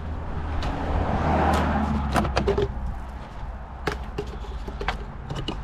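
Scattered sharp clicks and knocks of hand tools and car parts being handled, over a steady low rumble.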